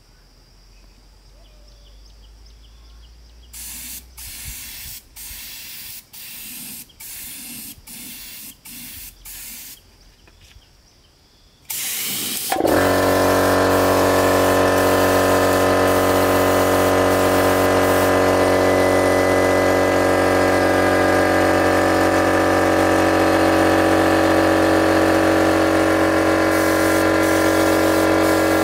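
Paint spray gun hissing in about eight short bursts. Then a small air compressor cuts in near the middle with a sudden jump in loudness and runs steadily, its motor hum under the hiss of the spray, refilling its tank as the gun draws air.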